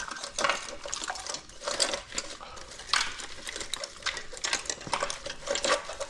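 A motorcycle wiring harness being fed through the frame by hand: wires and plastic connectors rustling and clicking irregularly against the metal.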